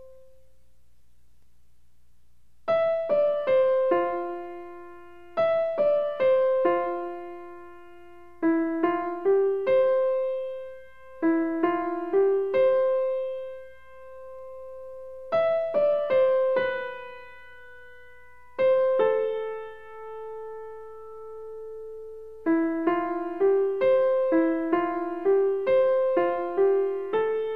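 Background piano music: a slow melody in short phrases of a few notes with pauses between them, moving into quicker, denser notes near the end.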